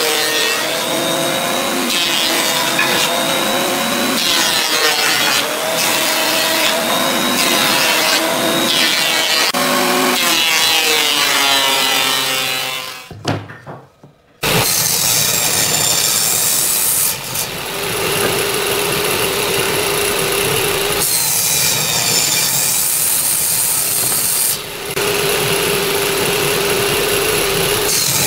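Thickness planer running with a board feeding through it; after a short break about 13 seconds in, a table saw runs and cuts a pine board, its sound changing during two passes.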